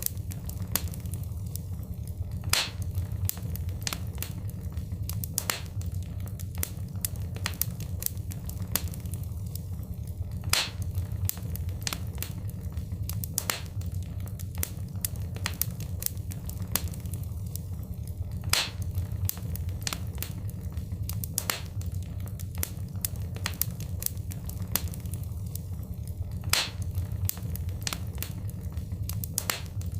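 Wood fire crackling in a fireplace: a steady low rumble under many quick sharp pops, with a louder pop about every eight seconds, the pattern repeating like a loop.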